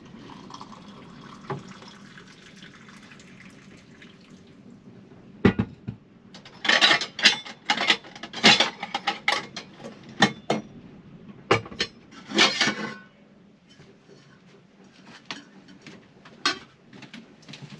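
Mugs, a pot and utensils clinking and knocking as coffee is served. A faint steady rush at the start gives way to a busy run of sharp clinks and knocks about five seconds in, which dies down to a few scattered clicks near the end.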